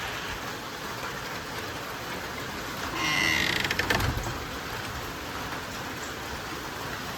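Steady heavy rain falling, a continuous even hiss. About three seconds in, a short high squeak and a quick clatter of clicks sound over it.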